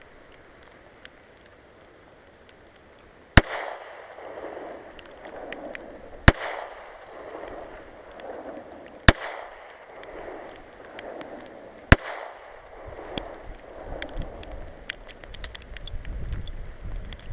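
Four pistol shots from a .32 pistol, evenly spaced about three seconds apart, each followed by a long rolling echo.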